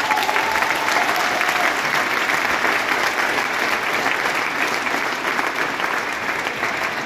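A hall audience applauding: many people clapping steadily, easing off slightly near the end.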